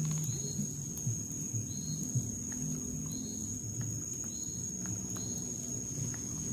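Insects in the forest keep up a steady, high-pitched buzz, with a short call repeating about every half to three-quarters of a second. A few faint clicks come from a plastic spoon against a plastic food container.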